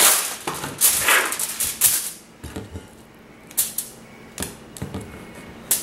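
Sheet of aluminium foil crinkling and rustling as it is handled, loud for about two seconds. After that come quieter scattered crinkles and light taps as meat is moved onto the foil.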